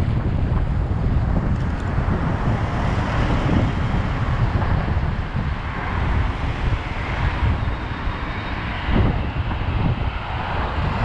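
Wind buffeting the microphone of a moving bicycle: a loud, gusting low rumble, with road and traffic noise mixed in.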